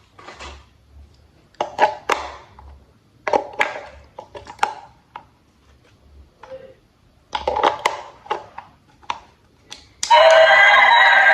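Plastic toy parts clicking and clattering as they are handled, in bursts of sharp clicks. About ten seconds in, a loud electronic toy sound with several tones starts suddenly and keeps going.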